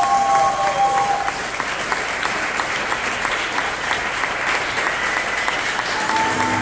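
Audience applauding steadily in a hall, dense clapping throughout, with the last held note of the tango music dying away in the first second or so.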